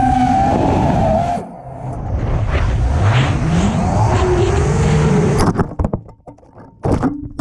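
Wind rushing over the onboard camera of a five-inch FPV racing quad falling with its motors stopped: an RX loss has triggered the failsafe, so no props are heard. A high whine that sags slightly cuts off about a second and a half in, and the rushing dies away about two seconds before the end.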